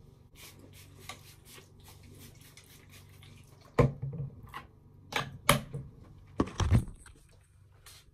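Small grooming items (hairbrush, comb, a small case) being handled and put down on a hard bathroom counter: a run of light clicks and rustles, then several louder knocks about four to seven seconds in.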